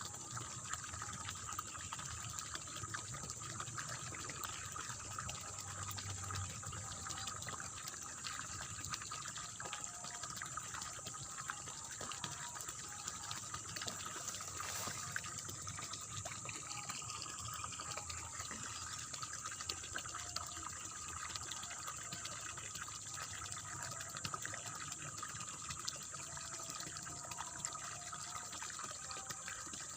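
Water running and splashing steadily in a rice field, a continuous gurgling flow with no pauses.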